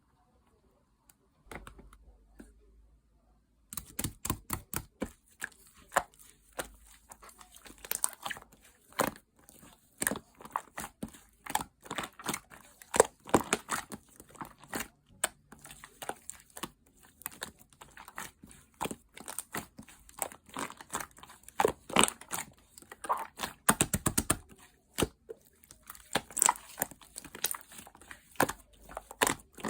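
Slime being mixed by hand, squished and folded: a dense, irregular run of sticky popping and crackling clicks that starts about four seconds in.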